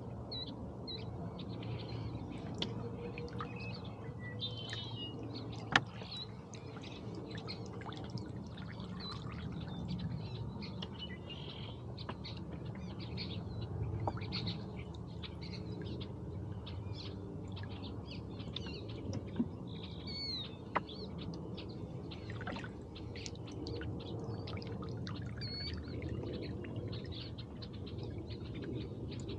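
Birds chirping and calling in many short notes throughout, over a low steady background noise. A sharp knock about six seconds in is the loudest sound, with a few fainter clicks later.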